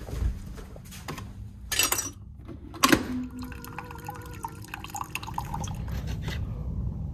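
Keurig single-serve coffee maker brewing into a ceramic mug: a short hiss and a click, then a steady hum as coffee streams and drips into the cup.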